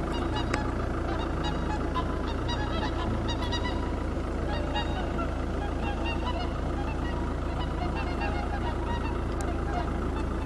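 A large flock of migrating geese flying overhead, many honking calls overlapping at once, over a steady low rumble.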